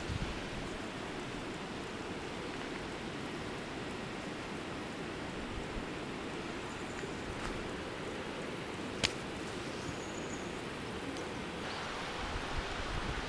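Steady rush of a river and waterfall, with one sharp click about nine seconds in.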